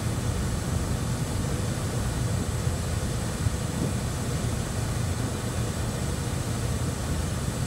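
Steady cockpit noise of a Cessna Citation Bravo business jet on final approach: an even low rush of airflow and engine noise from its two Pratt & Whitney Canada PW530A turbofans, with a faint steady high whine.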